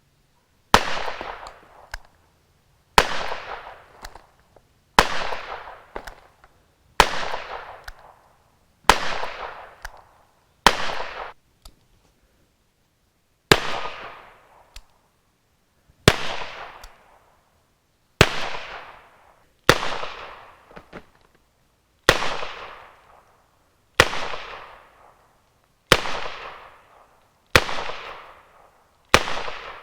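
Smith & Wesson Model 10 revolver firing .38 Special rounds, about fifteen shots at a steady pace of roughly one every two seconds, each sharp report trailing off over about a second. There is a pause of nearly three seconds after the sixth shot.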